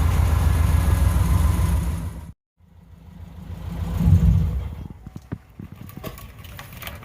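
Car engine running steadily, then cut off abruptly. A second engine sound swells to its loudest about four seconds in and fades away, followed by scattered clicks and knocks.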